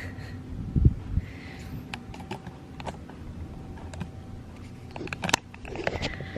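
Scattered small clicks and taps with a low thump about a second in, over a steady low hum.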